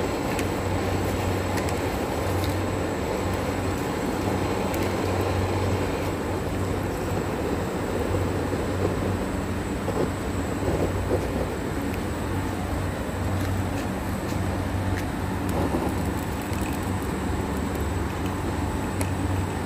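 Butane canister torch running steadily, its flame blowing into a pile of charcoal to light it: a continuous, even rushing noise with a low rumble.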